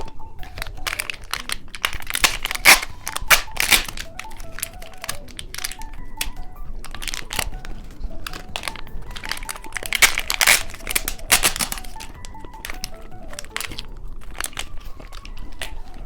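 Plastic snack packaging crinkling and tearing as it is handled and opened, in two loud crackly bouts, with soft background music underneath.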